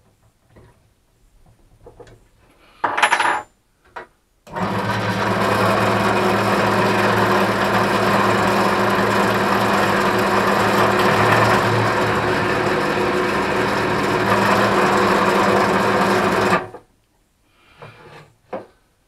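Bench drill press motor running steadily for about twelve seconds while a Forstner bit is fed into plywood to leave a flat surface around the insert holes, then stopping suddenly. A short loud knock comes about three seconds in, before it starts.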